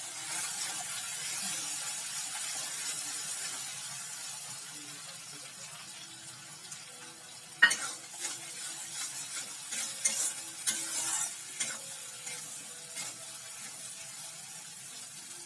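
Mustard paste, chopped onion and green chillies sizzling in mustard oil in a kadai as a spatula stirs them, the sizzle strongest in the first few seconds and then easing. From about halfway the spatula scrapes and knocks against the pan in sharp strokes, the loudest just over halfway.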